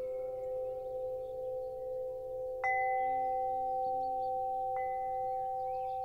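Bell-like metal chimes ringing with long, steady tones, struck again about two and a half seconds in and once more near five seconds, the first of these strikes the louder.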